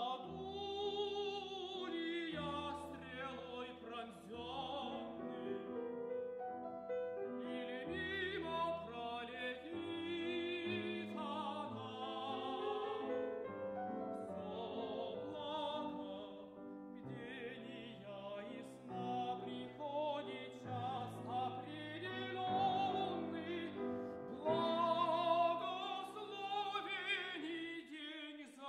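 Operatic tenor voice singing an aria with a wide vibrato over piano accompaniment, phrases of long held notes that swell loudest near the end.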